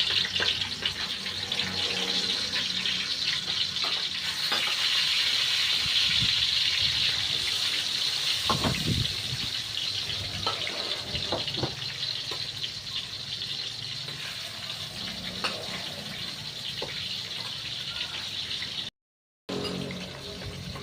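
Fish frying in hot oil: a steady sizzle with fine crackling, and a few soft knocks.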